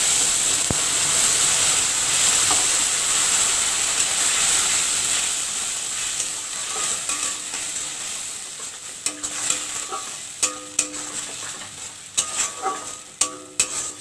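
Wet ground spice paste frying in hot oil in a metal wok: a loud sizzle that gradually dies down. From about halfway through, a flat metal spatula scrapes and clicks against the wok as the paste is stirred and sautéed.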